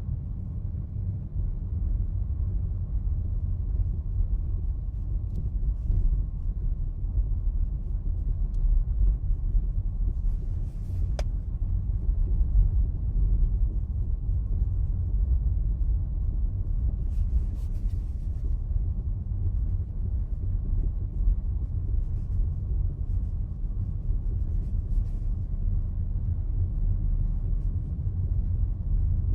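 Nissan Almera Classic on the move: a steady low road rumble with uneven knocks from the front suspension, which the owner puts down to the suspension spacers.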